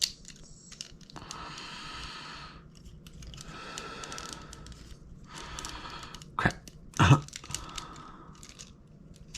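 Small hard-plastic clicks and rubbing as a transforming action figure is worked by hand to free its stuck head joint.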